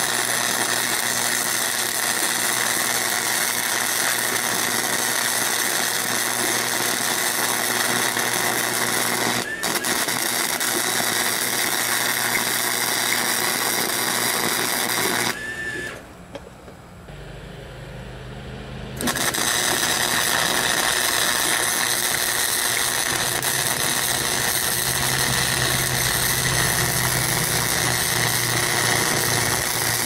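Flux-core wire welding arc from a 90-amp Chicago Electric wire welder, crackling steadily as a bead is laid. The arc stops about fifteen seconds in and strikes again a few seconds later.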